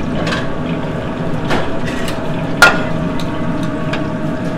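Clinks and knocks of a metal spoon against stainless steel pans while pork fat is spooned off a roast, the sharpest clink about two and a half seconds in, over a steady kitchen hum.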